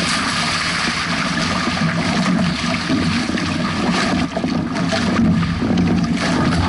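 Wind buffeting the microphone over water rushing and splashing against the hulls of a Hobie 16 catamaran sailing through choppy waves.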